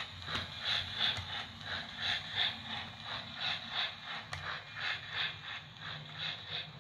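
HO scale model train running on its track, a steady mechanical sound with a regular beat about three times a second, growing fainter near the end as it moves away.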